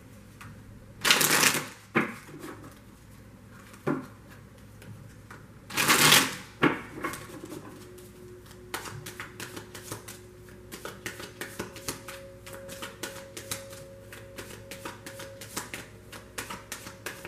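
Tarot cards being shuffled by hand: two short, loud flurries of card flapping about a second and about six seconds in, then a long run of quick, soft card clicks from about eight seconds on.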